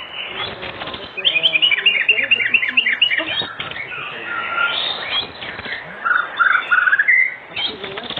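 White-rumped shama singing a varied song of quick whistled phrases, with a run of rapid repeated notes in the first few seconds.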